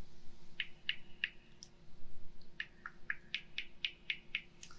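Haircutting scissors snipping close to the ear of a binaural microphone: a few scattered snips, then a quicker run of about four snips a second in the second half.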